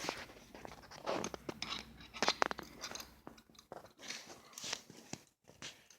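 Irregular clicks, taps and short scraping of hand tools and small metal parts being handled while the brake lever's reach adjuster is screwed in. The loudest clicks come a little after two seconds in.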